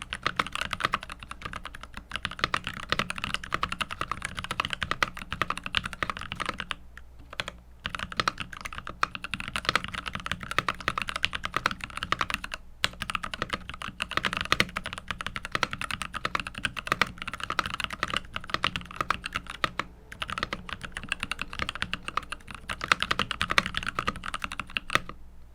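Rapid typing on a mechanical keyboard with Lychee linear switches (UHMWPE stem), a fairly muted clacking, with short pauses twice and a stop at the very end.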